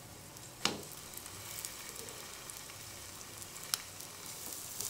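Coconut poli (obbattu) rounds sizzling gently in ghee on a hot iron dosa tawa, with two short sharp clicks, one under a second in and one later, as the pan is handled and another round is laid on.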